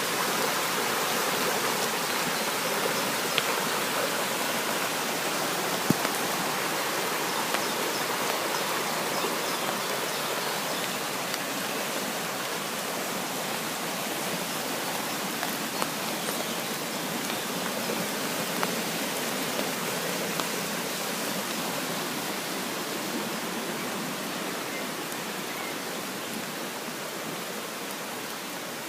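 A small stream in flood: fast, swollen water rushing steadily, with a few brief ticks standing out now and then. It grows slightly quieter toward the end.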